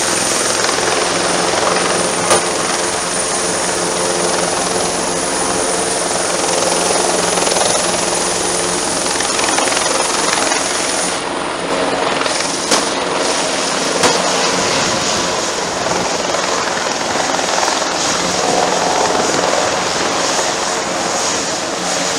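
Bell Twin Huey helicopter, a twin-turbine machine, running at power as it lifts off and hovers away. A steady high turbine whine sits over the dense sound of the rotor and engines, with a few faint clicks.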